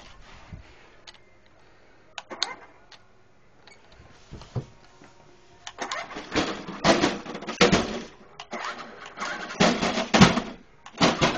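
A jeep bumping its way down a staircase. A few scattered clicks and knocks are followed, from about six seconds in, by a run of loud clattering knocks and rattles as it goes down the steps. No engine note is heard.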